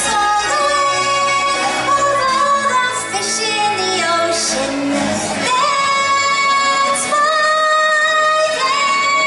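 A woman singing a musical-theatre song over backing music, ending on long held notes.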